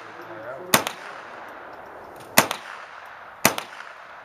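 Three single gunshots at a slow, uneven pace, one to two seconds apart.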